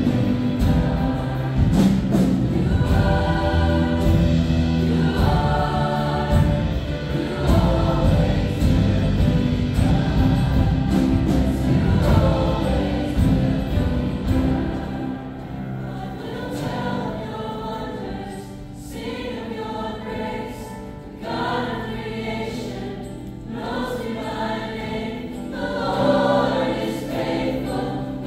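Choir singing a gospel worship song. Heavy low accompaniment drops away about halfway through, leaving mostly the voices.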